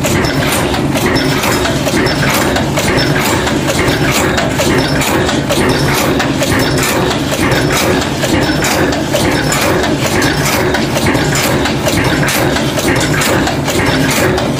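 Bolt-making machinery running: a steady motor hum under a rapid, even clatter of mechanical strokes.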